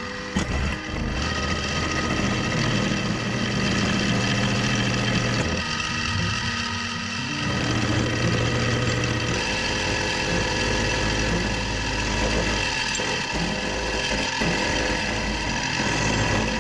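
Milling machine running, its end mill cutting a metal block and throwing chips: a steady cutting whine over the motor's hum, loudening about half a second in.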